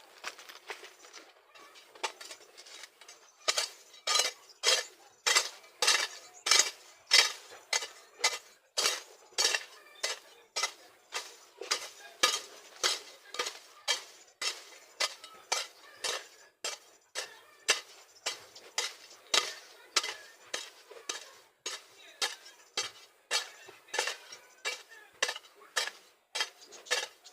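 Garden hand tool working soil while weeding, in quick regular strokes of about one to two a second, each a short scrape or chop with a light clink.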